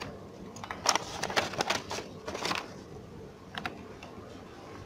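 Handling noise from the camera being moved about: a quick run of clicks and rustles for about a second and a half, then two faint clicks a little later.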